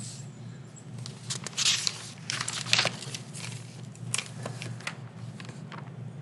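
A man's breathy, mostly unvoiced laughter: a run of short, irregular huffs of breath, bunched most thickly in the first few seconds.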